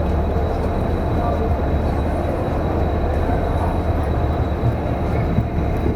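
Passenger train rolling past with a steady rumble of wheels on rail.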